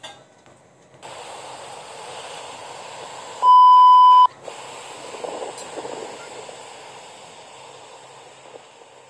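A loud, steady test-tone beep, just under a second long, about three and a half seconds in, the sound that goes with a TV colour-bars 'no signal' effect. Around it is a steady hiss of background noise.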